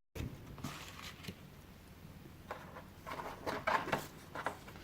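Game cards being handled and set down: a few soft rustles and light taps, most of them in the second half.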